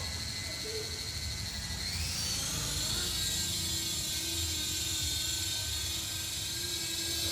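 3D-printed RC helicopter's electric motor and rotor whining steadily; about two seconds in the pitch rises as the motor speeds up, then holds. A steady low rumble lies beneath it.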